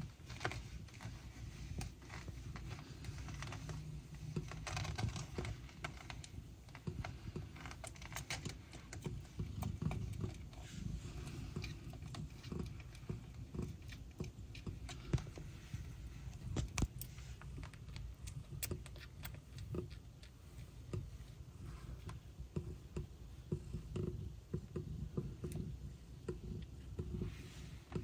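Newborn kittens suckling and jostling at their mother cat's belly: many small, scattered clicks and fur rustling over a low rumble.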